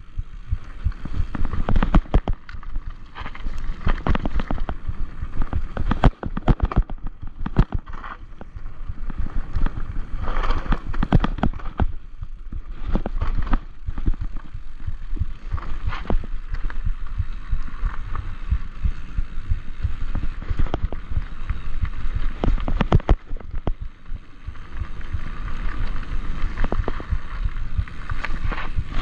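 Enduro mountain bike descending a rough dirt and rock trail, heard from a camera mounted on the rider: a steady low rumble with frequent sharp knocks and rattles as the bike runs over bumps and rocks.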